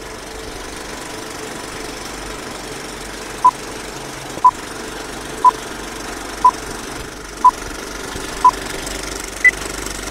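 Old-film countdown leader effect: a steady clattering film projector with a short beep every second, six at the same pitch, then one higher beep near the end.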